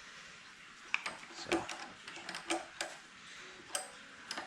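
Ratchet wrench clicking in short, irregular bursts as the car battery's terminal nut is loosened to disconnect the battery.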